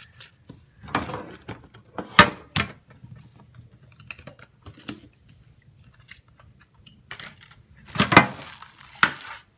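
A trading card and hands handling a row of standing cards: a few sharp taps and clacks, loudest about two seconds in and again near the end, with a quieter stretch of faint ticks in the middle.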